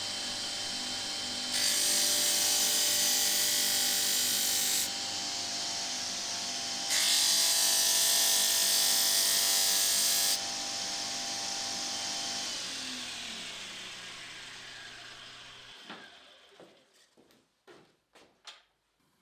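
Bench disc sander running, with two passes of a few seconds each as small wooden strips are ground against the disc to shape their ends. The sander is then switched off and its motor winds down over a few seconds, followed by a few light knocks near the end.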